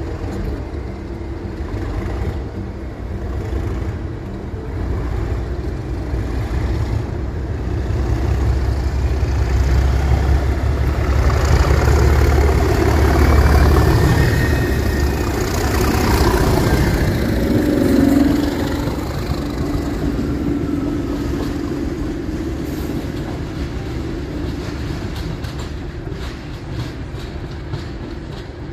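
A pair of coupled Network Rail Class 97/3 diesel locomotives, re-numbered English Electric Class 37s, passing by. Their engine drone grows as they draw level, is loudest about halfway through, then fades as they move away.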